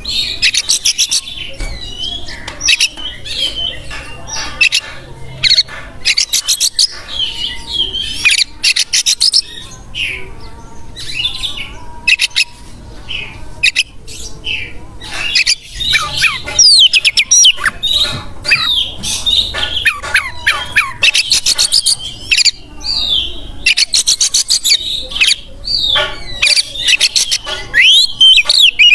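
Oriental magpie-robin in full, vigorous song: a continuous, varied run of whistled gliding notes broken by fast rattling trills, with hardly a pause.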